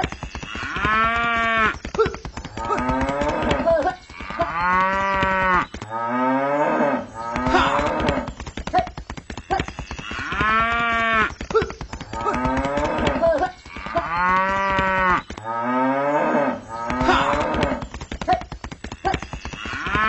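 Cattle mooing: a string of drawn-out moos about every two seconds, each rising and falling in pitch, over a dense clicking. It is a looped farm sound effect that repeats about every nine and a half seconds.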